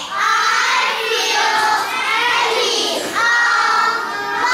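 A class of young children calling out together in unison, several drawn-out phrases in a row.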